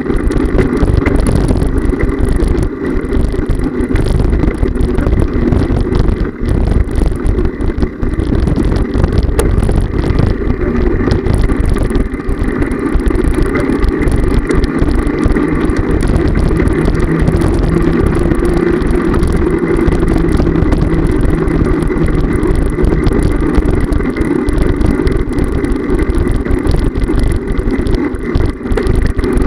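Steady wind buffeting the microphone and the rumble of wheels rolling over sidewalk paving while riding along at speed, loud and unbroken.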